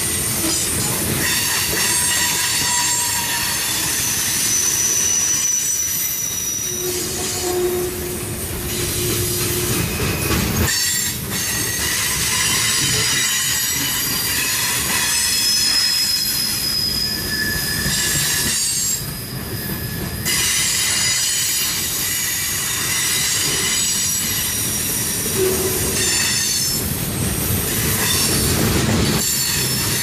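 Freight cars rolling past close by: a steady rumble and clatter of steel wheels on the rails, with thin wheel squeals that come and go several times.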